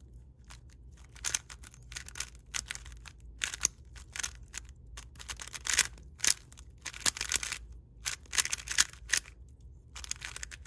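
Angstrom Studio WRM (MoYu WeiLong WR M) 3x3 speed cube being turned fast during a solve: quick runs of plastic clicks and clacks as the layers snap round, in bursts with brief pauses between. The cube is factory-lubed with Angstrom Project A and B and is described as dry, crunchy and very quiet.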